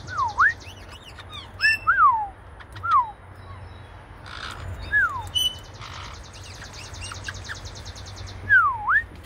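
Caique parrots giving loud, clear whistles: a down-and-up slurred whistle at the start, a few falling whistles over the next several seconds, and another down-and-up whistle near the end. A fast, thin buzzing pulses in the background for a couple of seconds in the middle.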